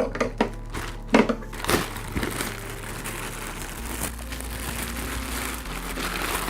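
Box packaging being opened and handled: several sharp crackles and rustles in the first two seconds, then softer rustling.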